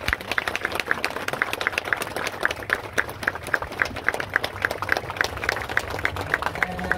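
Crowd applauding: a dense patter of hand claps, with a few louder individual claps standing out.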